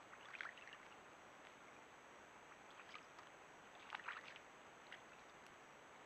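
White-tailed deer's hooves splashing faintly in shallow muddy water: a few quick splashes about half a second in and again about four seconds in, over a steady low hiss.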